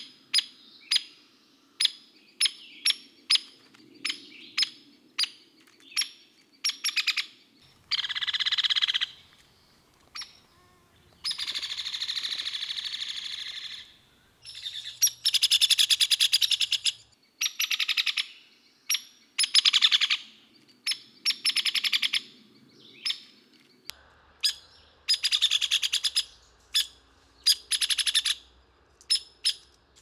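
Hairy woodpecker calling: a run of short, sharp 'peek' notes about twice a second, then from about eight seconds in, rapid rattling whinnies held at one pitch, some lasting a couple of seconds or more, mixed with more 'peek' notes.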